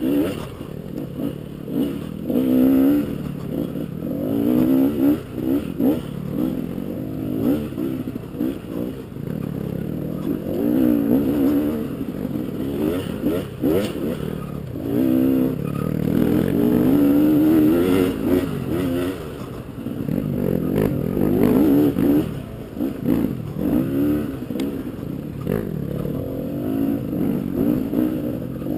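Dirt bike engine revving up and down repeatedly as it works over a rocky trail, with scattered knocks from the bike over rocks.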